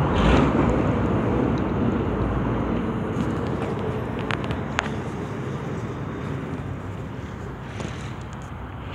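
Steady rumble of passing vehicle traffic, slowly fading away, with two light clicks about halfway through.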